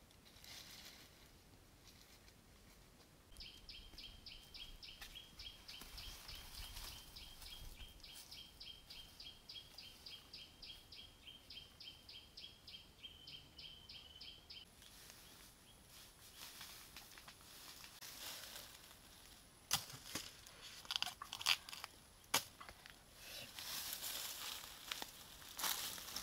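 A high, rapid chirping call repeats evenly about six times a second for roughly eleven seconds. Then footsteps crunch and rustle through dry grass and fallen bamboo leaves, with a few sharp snaps near the end.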